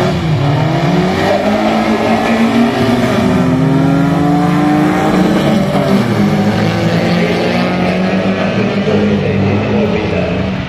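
Rear-wheel-drive folkrace cars' engines racing, their pitch rising and falling as they rev, with more than one engine heard at once.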